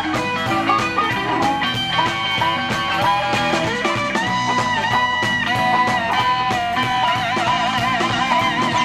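Live blues band playing an instrumental passage: electric guitar and harmonica over electric bass, drums and keyboard. There are long held notes in the middle, and a wavering held note near the end.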